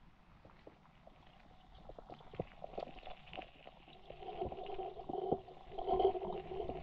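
Underwater sound picked up by a submerged camera: very quiet at first, with scattered small clicks and knocks, then from about four seconds in a steady, wavering hum of two tones that grows louder.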